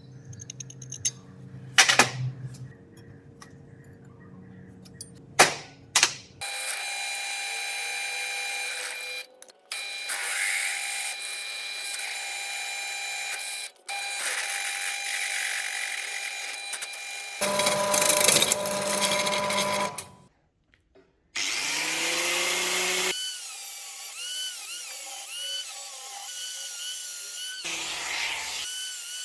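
Electric power tools running in a string of short, abruptly cut clips: a few sharp knocks at first, then steady motor whines, one spinning up in pitch partway through.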